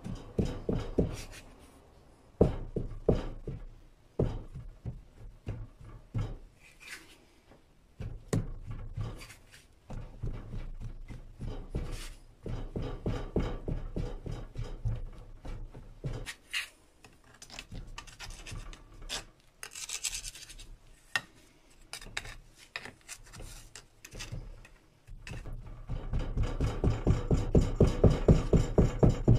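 Hand rammer with a metal foot packing foundry sand into a molding flask: dull thuds and scraping of sand in irregular bursts, then a fast even run of strikes near the end, about four a second and the loudest part.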